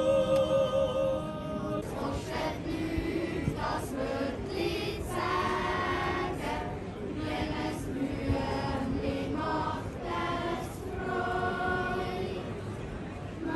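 A held sung chord ends about two seconds in. Then a children's choir sings a Swiss yodel song in changing phrases, accompanied by a button accordion.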